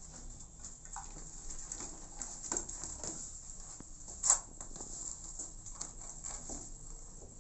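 Scattered small taps, scratches and rustles of kittens' claws and paws on cardboard and denim as they scramble and climb, with one sharper click a little past the middle.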